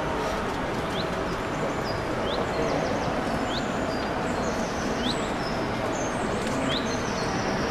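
Small birds chirping over a steady rushing background: a short curved chirp about every one and a half seconds, with higher whistled notes between.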